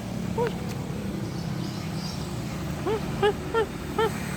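Cats meowing for food: one short mew about half a second in, then four quick short meows near the end. A steady engine drone runs underneath.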